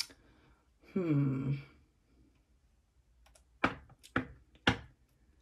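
Tarot cards handled while shuffling, with three sharp slaps of cards about half a second apart. A short hum from a woman's voice, falling in pitch, comes about a second in.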